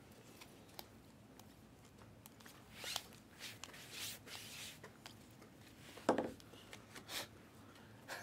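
Faint rustling and sliding of trading cards and foil pack wrappers being handled, in short swishes with scattered light clicks; the loudest is a brief knock about six seconds in.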